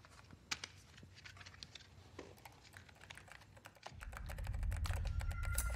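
Irregular clicking of typing on a computer keyboard. About four seconds in a low rumble comes in and grows louder, and near the end a steady high beep is held for over a second.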